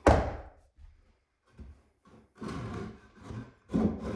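Wood knocking against wood as a small piece is pressed and tapped into place by hand. There is a sharp knock at the start, then lighter knocks and a brief scraping stretch, with more knocks near the end.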